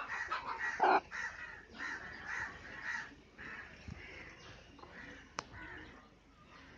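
Several short, harsh bird calls in quick succession through the first three seconds, the loudest about a second in, then a single sharp click a little after five seconds.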